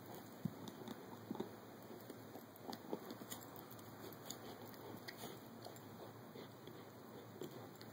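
A Caucasian Ovcharka puppy gnawing a pizzle (bully stick): irregular clicks and scrapes of teeth on the chew.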